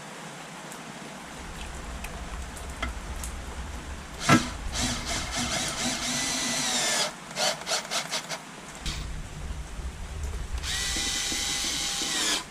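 Cordless drill-driver running oil pan bolts in: a sharp clank, then a steady whine for about two seconds, several quick trigger blips, and another run that winds down near the end.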